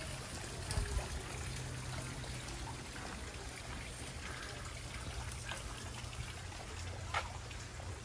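Water trickling over a steady low hum, with a few faint clicks and one sharper click near the end.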